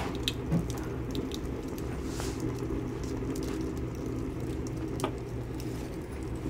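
Pine kindling burning in the feed tube of a homemade brick rocket mass heater: a steady low rumble of the fire with scattered crackles and pops from the wood.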